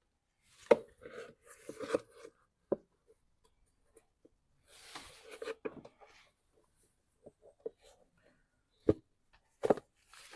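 Irregular sharp clicks and knocks of hard engine parts being handled and pressed into place by hand, with a rustle of handling about halfway through.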